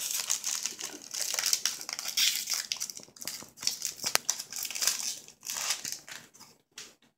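Shiny foil trading-card pack wrapper crinkling as it is pulled open by hand. The crinkling comes in dense bursts for about three seconds, then thins to sparser rustles with one sharp tick a little after four seconds.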